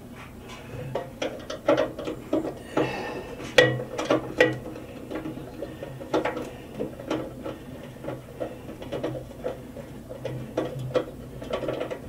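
Ratchet wrench clicking in short back-and-forth strokes, mixed with knocks of the tool against the stove's sheet metal, as an 8mm screw holding the blower motor is worked loose.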